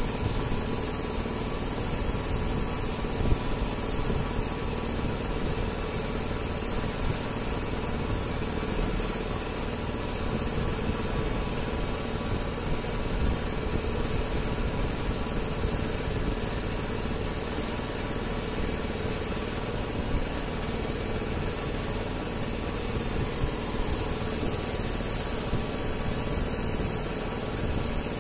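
Boat engine idling steadily over a constant hiss of wind and water.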